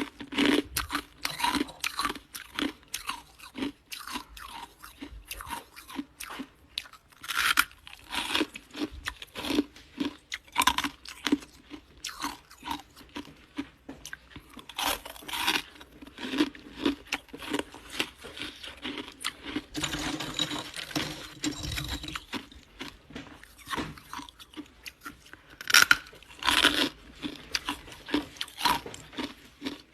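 Ice being bitten and chewed close to the microphone: a continuous run of sharp, cracking crunches, with a few louder bites and a steadier stretch of grinding chews shortly after the middle.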